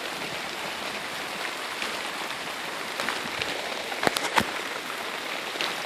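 Heavy rain pouring down, an even hiss, with a couple of sharp taps about four seconds in.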